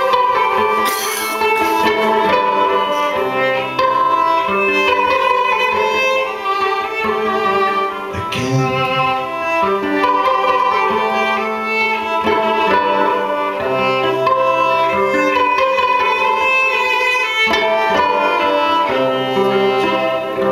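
A violin being bowed in a live instrumental passage, playing a continuous melody over held low notes from the accompaniment.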